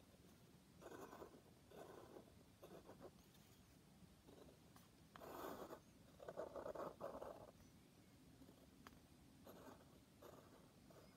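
Felt-tip marker drawing on paper: faint scratching of the nib in about eight short strokes, with pauses between them.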